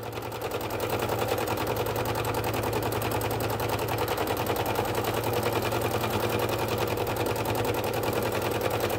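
Domestic sewing machine stitching free-motion quilting with a darning foot and the feed dogs lowered, its needle clattering in a fast, even rhythm. It picks up a little speed and loudness about a second in.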